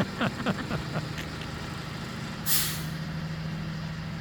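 Bucket truck engine running steadily, with a short air-brake hiss about two and a half seconds in. A few brief chirps in the first second.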